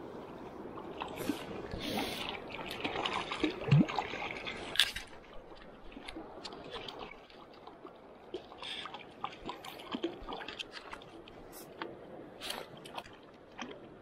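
Water splashing and sloshing in irregular bursts as a hooked fish thrashes at the surface while being played in on a fly rod, busiest in the first five seconds and then in smaller, sparser splashes.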